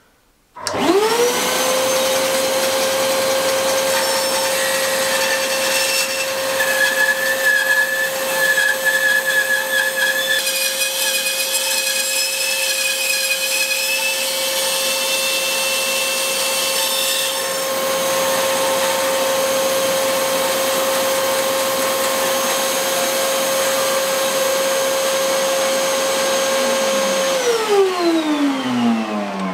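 Bandsaw motor starting and quickly running up to a steady hum while a fine blade rips a log of green timber fed on a sliding sled; extra higher whining tones come and go during the first half of the cut. Near the end the saw is switched off and its pitch falls steadily as it spins down. The blade is one the owner judges far too fine for green wood.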